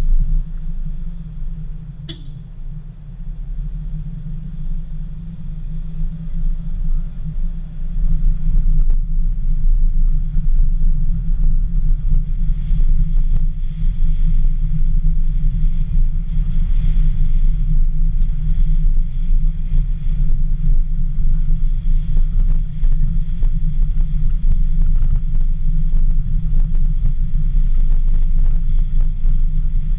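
Low wind rumble buffeting the microphone of a GoPro Hero 4 mounted on the outside of a moving Dacia Sandero, with the car's running noise underneath. It grows louder about eight seconds in, and there is a single short click about two seconds in.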